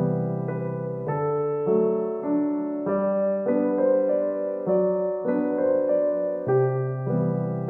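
Background music: piano playing a repeating pattern of notes that change about every half second.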